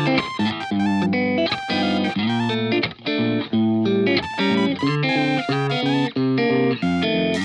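Background music: an instrumental track led by plucked electric guitar, with bass, playing a quick run of changing notes.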